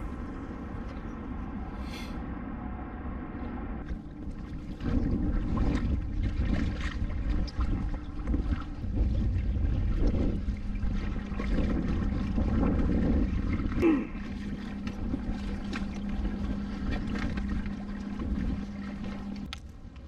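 Kayak moving across the lake: water rushing and lapping against the hull, with wind noise. The sound gets louder about five seconds in, and a steady low hum joins about halfway through and stops just before the end.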